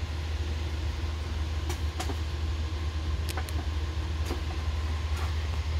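A few light clicks of a multimeter test lead's red alligator clip being handled and clipped onto a back-probe pin, over a steady low hum.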